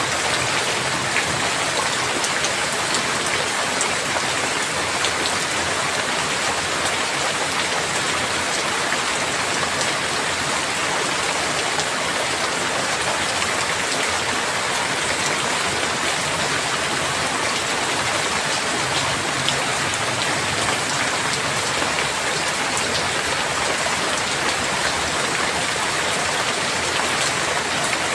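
Heavy rain falling steadily, a dense even hiss of drops hitting surfaces, with scattered sharper drop ticks.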